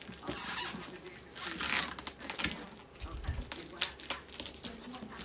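Cardboard packaging of a box fan being handled and opened: irregular rustling, scraping and tearing noises with a few knocks, including a low thump a little past the middle.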